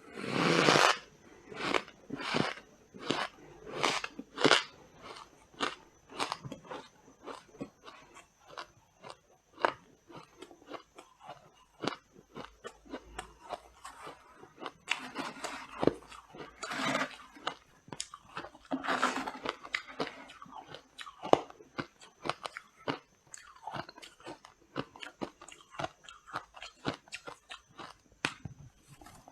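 Freezer frost being bitten and chewed close to the microphone: squeaky crunching, with heavier bites about half a second in and again around the middle, each followed by rapid chewing crunches.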